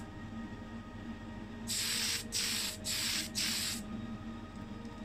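Aerosol can of Tamiya Fine Surface Primer spraying in four short hissing bursts, from about a second and a half in to about four seconds in, as a first coat of white primer goes on.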